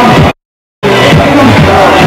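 Loud background music that cuts to dead silence about a third of a second in and comes back about half a second later.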